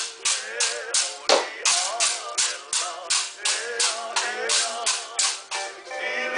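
Split-bamboo pūʻili sticks struck in a steady beat, about three rattling strokes a second, pausing briefly near the end, over a recorded Hawaiian song with singing.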